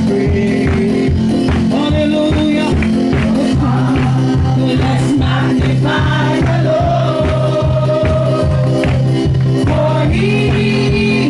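Live church worship music: a band with bass and a steady drum beat, with held sung notes over it.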